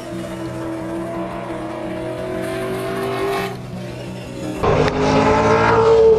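V8 Supercar race engines at high revs: first a car heard at some distance with its note slowly rising, then from about four and a half seconds in a much louder car coming close, its engine note climbing and starting to drop as it passes near the end.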